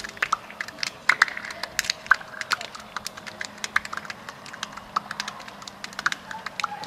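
A scatter of sharp hand slaps and claps, several a second and unevenly spaced, as football players slap hands down the pre-match handshake line.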